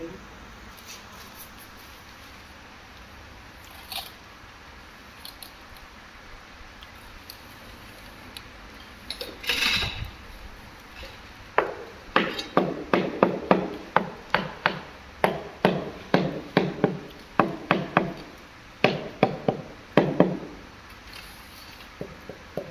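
A hammer knocks a ceramic wall tile to bed it into fresh mortar: a run of light, sharp knocks, about three a second, through the second half, with a short break near the end of the run. Before it there are faint trowel scrapes and a brief scrape about nine seconds in.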